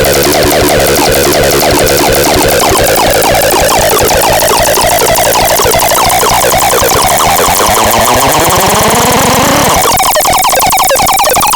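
SARBAX CL 200 electronic siren, loud, cycling through warbling electronic tones. A tone sweeps upward over two or three seconds, then about ten seconds in it switches abruptly to a new pattern with a slowly rising pitch.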